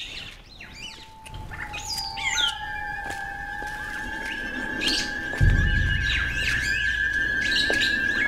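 Birds chirping, with background music fading in under them: a held tone enters about a second in, a higher wavering tone joins, and a deep bass comes in after about five seconds.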